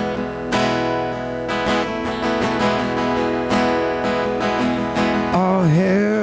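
Strummed acoustic guitar playing a hymn accompaniment with steady sustained chords. A singing voice comes in about five seconds in.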